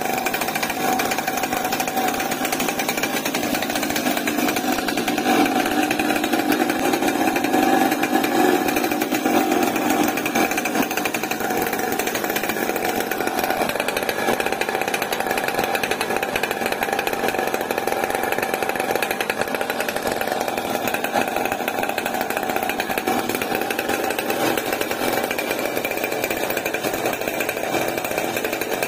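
Chainsaw-derived two-stroke engine in an RC boat, running steadily through a new chrome expansion-chamber exhaust pipe. It runs a little louder for a few seconds about five to ten seconds in.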